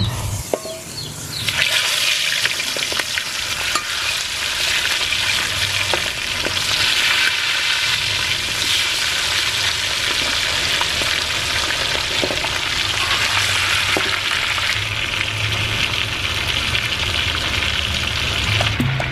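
Raw chicken pieces frying in hot oil in a wok: a loud, steady sizzle that sets in about a second and a half in, with a few light clicks.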